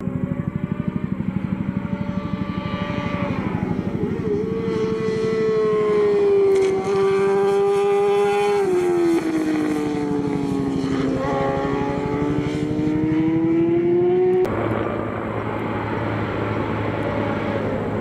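J-GP2 racing motorcycles' 600cc four-cylinder engines running at high revs through a corner. The engine note holds high, drops as a bike slows for the bend, then climbs steadily as it accelerates out. The sound changes abruptly near the end as another bike's engine takes over.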